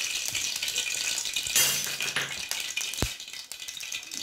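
Cooking oil crackling and spitting in an aluminium kadai as it heats on a gas flame: a dense patter of fine crackles. One sharp knock about three seconds in.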